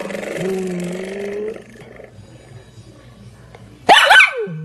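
An animal vocalising: a drawn-out low moaning call that rises slightly and lasts about a second and a half, then a loud, short, high-pitched squeal near the end.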